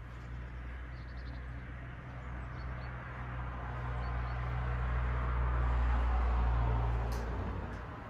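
Low rumble of a passing vehicle outside, swelling slowly to a peak and fading away.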